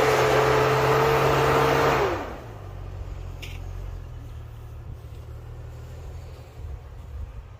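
Jeep Cherokee engine held at high revs with a slowly rising whine. About two seconds in, the revs drop off quickly and it runs on at low revs.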